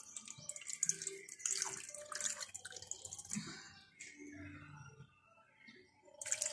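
Nutrient solution poured from a plastic bowl, splashing and trickling into a shallow metal tray. The pour eases off in the middle and starts again near the end.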